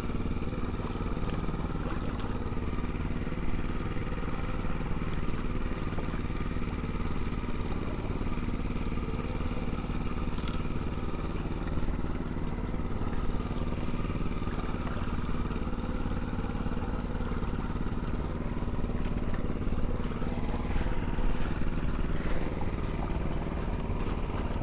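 Small boat engine running steadily, a constant even drone with a few faint clicks over it.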